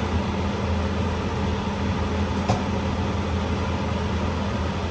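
Chopped onions and garlic frying in a little oil in a pot, an even hiss, over a steady low mechanical hum from a kitchen appliance or fan. One faint click comes about halfway through.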